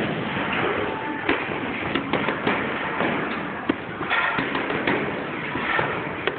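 Boxing gloves punching focus mitts: a series of irregularly spaced sharp smacks during padwork.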